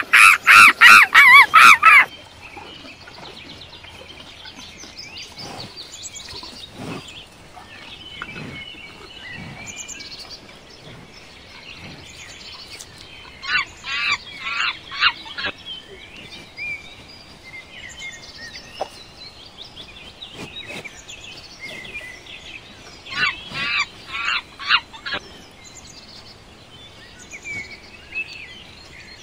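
A loud, rapid series of animal calls cuts off abruptly about two seconds in. Then comes a quiet outdoor background, broken twice, about ten seconds apart, by short runs of rapid high-pitched calls.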